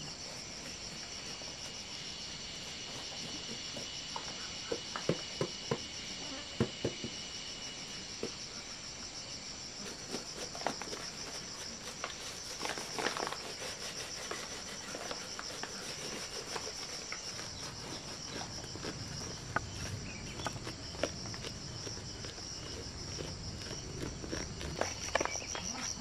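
Steady high chirring of insects, with dry crackling and small patters as hands rub seeds loose from a dried sunflower head, the clicks coming more thickly in the second half.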